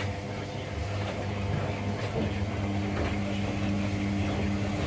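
Washing machines running a wash cycle: a steady motor hum that grows stronger about a second in, with faint scattered clicks and knocks from the turning drums.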